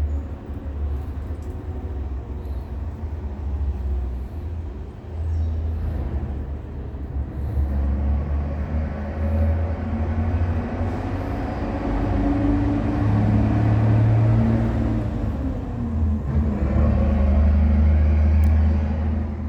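A low engine rumble, as of a motor vehicle running, growing louder in the second half.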